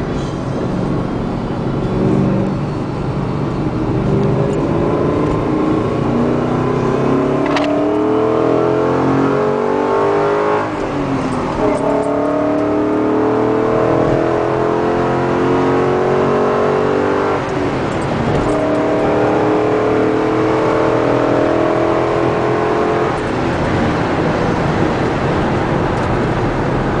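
2010 Ford Mustang GT's 4.6-litre V8 accelerating through the gears: the engine note climbs three times, each climb about five seconds long and ending in a sudden drop in pitch at the upshift, then holds a steadier note near the end.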